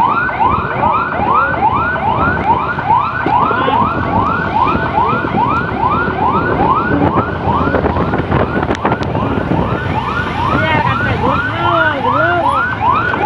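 Electronic emergency siren sounding a fast yelp, about two rising sweeps a second, over engine and road noise. Near the end a second, lower siren with slower, arching sweeps sounds along with it.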